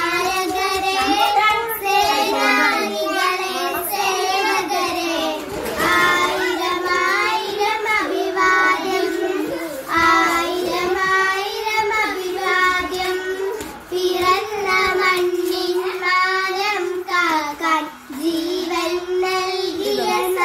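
Two young girls singing a Malayalam song together, the melody carried continuously with only short breaks for breath.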